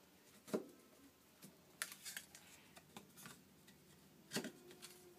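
Light knocks and clicks of thin MDF toolbox panels being handled and fitted together, about half a dozen short taps scattered over a few seconds, the loudest near the end.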